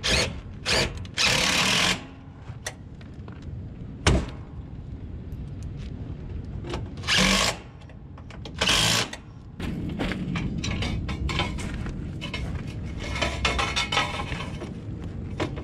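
Cordless drill driving sheet-metal screws into a rooftop HVAC unit's side panel: several short bursts in the first nine seconds, one of them longer, with a sharp click between them. This is followed by a few seconds of lower, steady noise.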